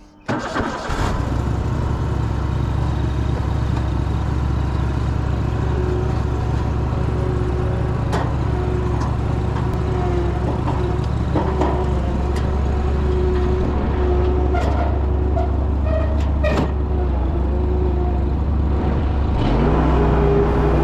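Engine of a Scag Turf Tiger II zero-turn mower running steadily with a deep drone, coming in suddenly just after the start; its note rises slightly and gets a little louder near the end.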